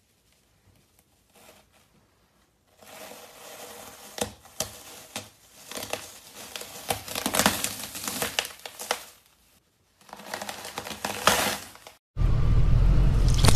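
Floral foam brick crunching and crackling as a boot heel and sole press into it, in two spells of dense crisp crackles. About twelve seconds in, a loud low rumble cuts in.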